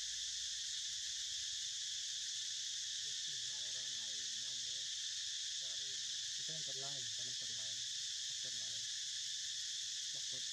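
Steady, unbroken high-pitched drone of an insect chorus, with faint voices talking in the background now and then from a few seconds in.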